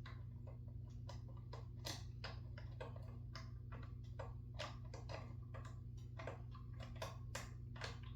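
Screwdriver turning and clicking on the screws that hold a ceiling fan's blade to its bracket: irregular sharp little clicks, about one or two a second, over a steady low hum.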